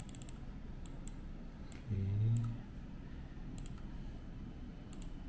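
Short, sharp clicks from operating a laptop: a quick cluster at the start, then single clicks about once a second.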